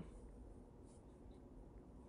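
Near silence: room tone, with faint rustling of fabric being handled.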